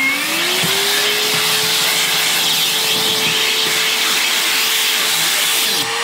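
Metabo HPT MultiVolt shop vacuum running corded on its power adapter, a steady motor whine over a rush of air as the crevice tool sucks up sawdust from a tabletop. The motor's pitch climbs during the first second after start-up, then holds steady.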